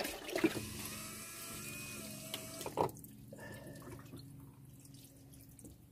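Water poured from a plastic jug into a bucket of water, then splashing and swishing as hands work in the bucket to wash hair, loudest in the first half. A faint steady hum runs underneath.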